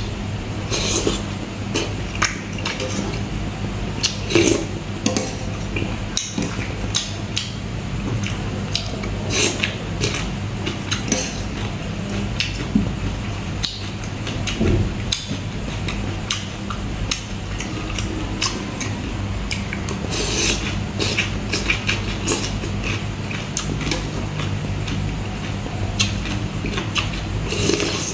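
Close-miked eating of spicy salmon and papaya salad: irregular wet chewing and mouth noises, with a metal spoon clinking and scraping on the tray, over a steady low hum.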